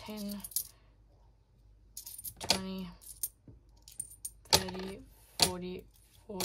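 Small Australian silver coins clinking against each other in the hand and being set down one at a time on a paper sheet on a table as they are counted. After a quiet first second or two, a handful of separate sharp clinks follow.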